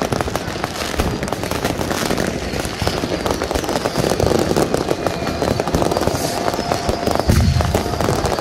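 Many fireworks and firecrackers going off at once, a constant crackle of bangs and pops. A heavier boom comes about seven seconds in.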